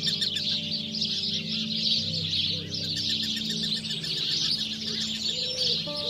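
Many birds chirping in a dense, continuous chorus, with a soft, low call repeated in short runs of about three notes, over a quiet music track with held low notes.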